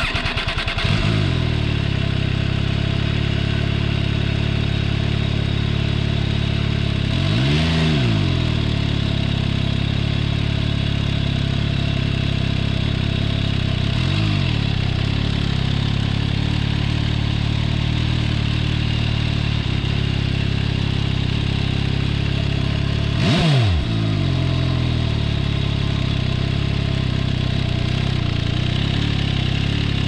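MV Agusta Turismo Veloce Lusso's three-cylinder engine catching at the start and settling into a steady idle. It is blipped three times: a full rev about eight seconds in, a small one around fourteen seconds, and a quick sharp one around twenty-three seconds.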